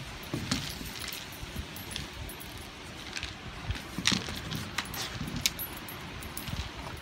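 Kong Wobbler, a weighted hard-plastic treat dispenser, being nosed and tipped about on wooden deck boards by a dog, with dry kibble rattling inside it. Irregular clatters and knocks as it rocks back upright, the loudest about four seconds in.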